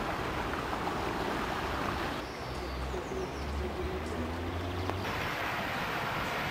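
Swollen floodwater rushing through a stream bed, a steady hiss, with a low rumble of wind on the microphone between about two and five seconds in.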